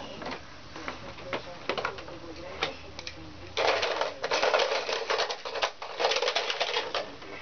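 Hard plastic of a toddler's ride-on toy car clicking, then rattling and clattering in three long bursts from about halfway through as it is rocked and handled.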